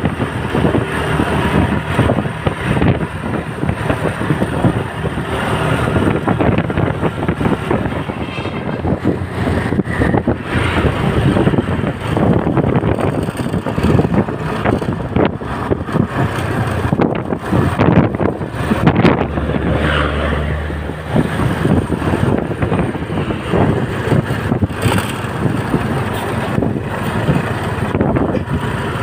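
Bus engine and road noise, with wind buffeting the microphone.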